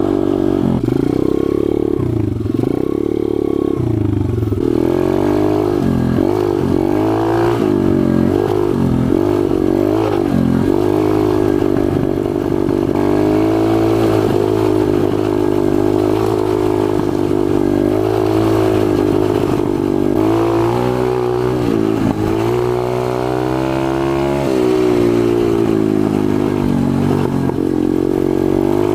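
Four-stroke pit bike engine revving repeatedly, its pitch rising and falling in quick blips through the middle and in longer swells later on.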